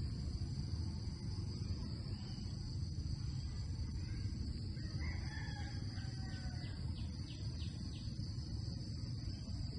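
Steady high-pitched insect chorus over a low rumble, with a rooster crowing once in the distance about five seconds in, followed by a short run of quick high ticks.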